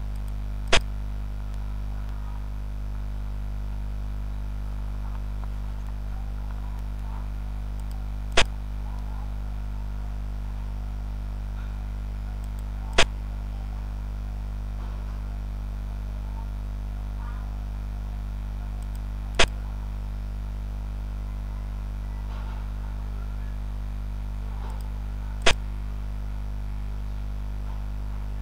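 Steady low electrical hum, with five sharp clicks spaced several seconds apart: the piece-placing click of a xiangqi board program as each move is played.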